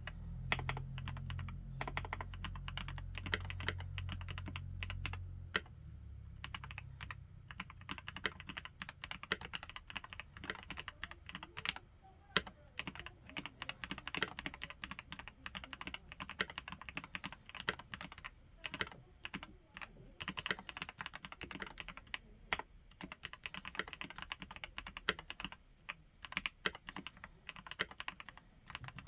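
Typing on an Epomaker Brick 87 mechanical keyboard with Gateron Pro Yellow linear switches: a continuous run of quick keystrokes. A low hum sits under the typing for about the first five seconds.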